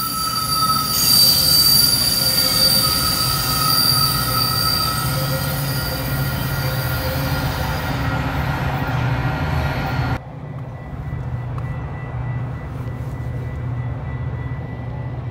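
Bilevel commuter train coaches rolling past on curving track, the wheels squealing with two steady high tones over a low rumble. The squeal fades out about eight seconds in, and about two seconds later the sound drops suddenly to a quieter steady rumble.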